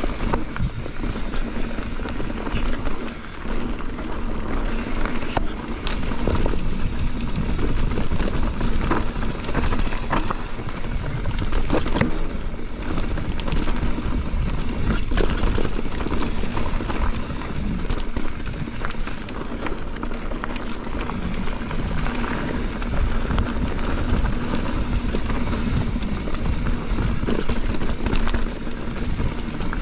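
Mountain bike riding down a rough dirt trail: a steady rumble of tyres over the ground, with frequent knocks and rattles from the bike throughout.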